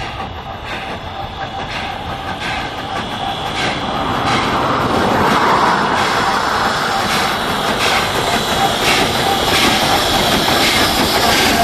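Nevada Northern Railway heritage train rolling past, its wheels clicking over the rail joints in a steady rhythm. It grows louder about four seconds in.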